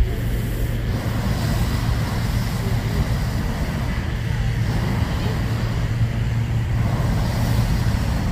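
An engine running steadily with an even low hum.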